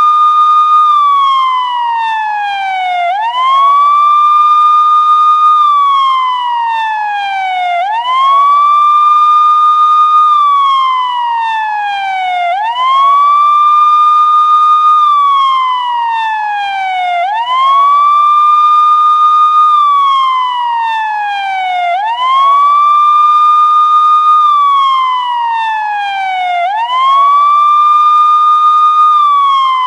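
Police siren wailing in a slow, even cycle: each sweep rises quickly to its high note, holds it about a second, then slides slowly down, repeating roughly every four and a half seconds.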